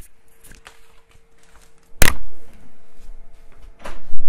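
Handling and movement noise as a person gets up from a chair and moves away: a sharp loud knock about two seconds in, rustling after it, and another loud burst near the end, over a faint steady hum.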